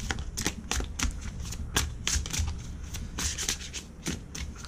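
A deck of oracle cards shuffled by hand, hand to hand: a quick, irregular run of card snaps and slaps, about three a second.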